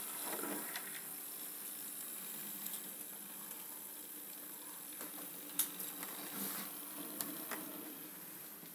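OO gauge model steam tank locomotive running along the track under DCC control: a steady whirr of its motor and wheels on the rails, with a few light clicks.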